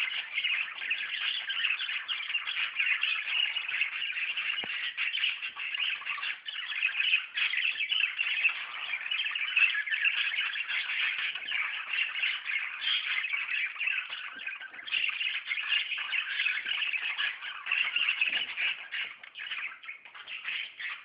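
A flock of budgerigars chattering continuously, many calls overlapping at once.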